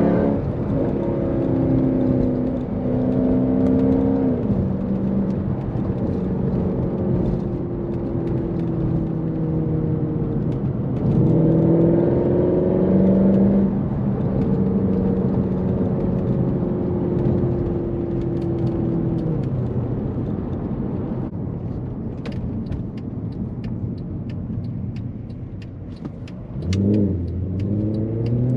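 Mercedes-Benz C63 AMG's naturally aspirated 6.2-litre M156 V8 being driven hard, its revs rising and falling. About eleven seconds in it climbs hard under acceleration, then eases off slowly. It settles lower for a while with a light ticking over it, and the revs climb again near the end.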